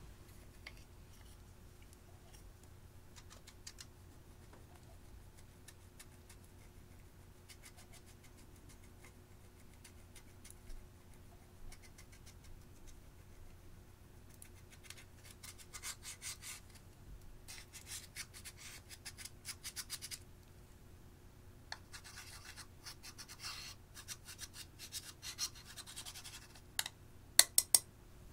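Pressed teal eyeshadow being scraped and crumbled out of its plastic compact pan with a small tool: dry, gritty scratching strokes that come in spells and grow denser in the second half. A few sharp, louder clicks come near the end.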